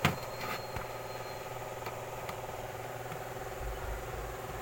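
A steady machine hum with several pitched overtones. There is a sharp click right at the start and a few lighter clicks in the first half second.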